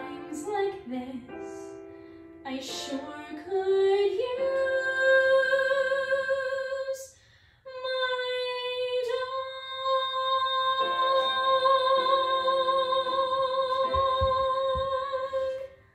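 A woman singing the closing phrases of a show tune over instrumental backing, ending on two long held notes, the second about eight seconds long with vibrato, before the music stops.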